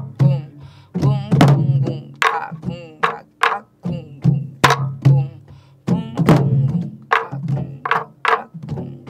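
Sori-buk pansori barrel drums played in a jungjungmori practice rhythm: deep palm strokes on the drumhead mixed with sharp stick strikes on the wooden shell, in an uneven pattern a few strokes a second.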